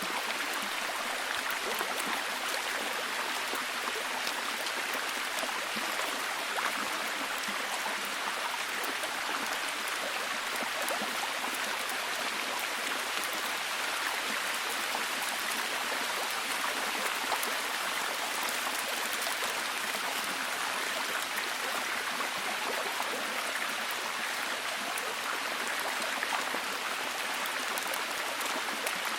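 Forest stream flowing steadily, mixed with rain falling and pattering. The sound is an even rushing hiss made of many small ticks, without pauses or changes.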